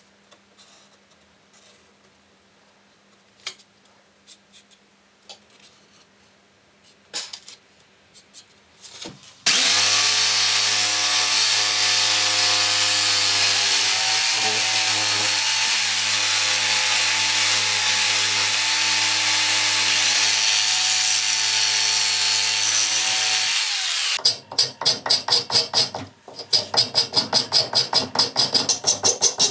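A few faint taps and handling noises, then an electric jigsaw starts about a third of the way in and runs steadily for about fourteen seconds, cutting elm knife-handle scales clamped in a vise, before stopping suddenly. After it, a hand file rasps across the wood in quick, regular strokes.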